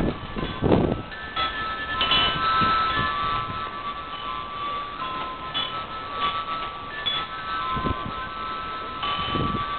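Wind chimes ringing, several clear notes struck at different moments and ringing on over one another. A few low dull thumps, the strongest just under a second in.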